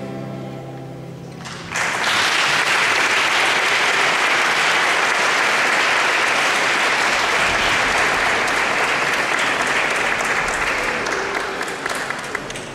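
A children's choir holds its final note, which ends about a second and a half in, and is followed at once by audience applause that starts suddenly and fades out near the end.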